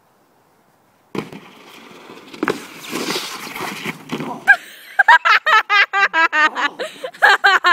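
Wooden skimboard scraping across icy snow, with knocks as the rider goes down, starting about a second in. From about five seconds in, loud laughter close to the microphone in quick repeated bursts, the loudest sound.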